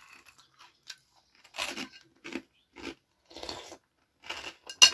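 A person eating meat close to the microphone: wet chewing and mouth smacks in several separate short bursts, with one sharp click near the end.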